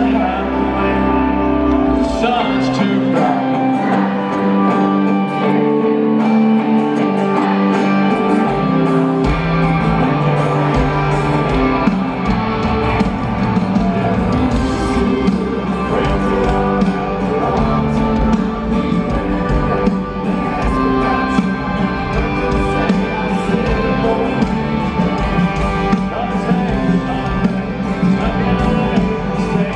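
Live country band playing through a stadium PA: a male lead vocal over acoustic and electric guitars and drums. The deep bass and kick drum are absent for the first several seconds and come in about nine seconds in.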